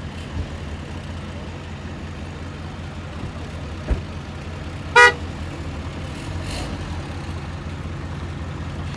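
Vehicle engine idling with a steady low rumble. About five seconds in, a short, loud vehicle horn toot, with a sharp click about a second before it.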